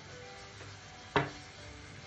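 Soft background music with scattered plucked-sounding notes, and one short knock about a second in.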